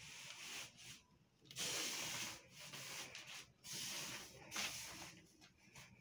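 Hands sweeping over a fitted bed sheet to smooth it: several separate swishing strokes of palm on fabric, the loudest about a second and a half in.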